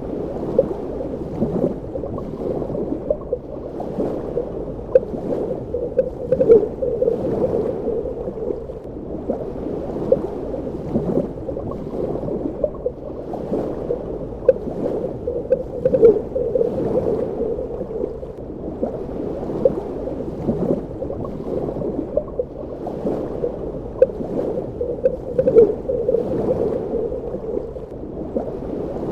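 Underwater ambience: a continuous muffled watery rumble with frequent small gurgles and bubble pops.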